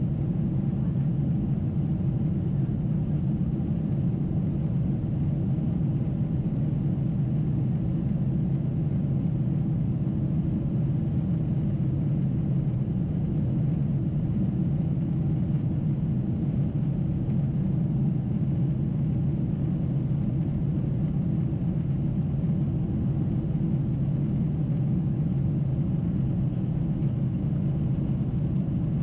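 Steady low rumble inside the cabin of a Boeing 747-8 in climb: its four GEnx turbofan engines and the airflow over the fuselage, heard from a window seat.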